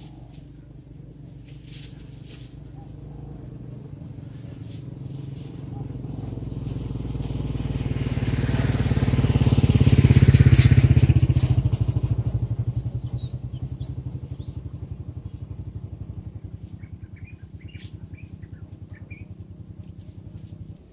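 A motorcycle passes on the road: its engine grows steadily louder, is loudest about ten seconds in, then fades away. Birds chirp as it recedes.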